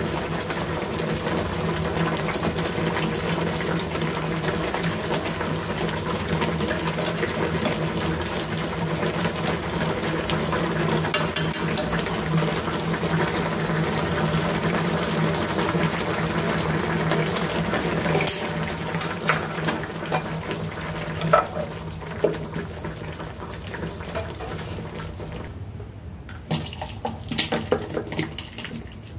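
Soup of pig lung and potatoes bubbling steadily in a frying pan on the stove, over a steady low hum. Near the end the bubbling drops away and chopsticks click against the pan and bowl as the food is lifted out.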